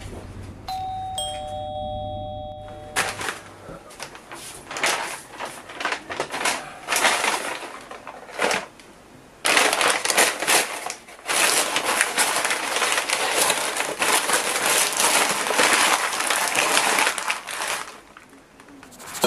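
A two-note doorbell chime, a higher note then a lower one, about a second in. Then brown paper wrapping crinkling and rustling as a package is unwrapped by hand, loudest and most continuous in the second half.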